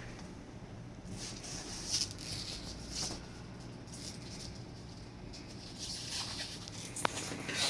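Faint rustling and handling noises as something is pulled out and unwrapped: a few soft crinkles about two and three seconds in, more near the end, and a small sharp click shortly before the end.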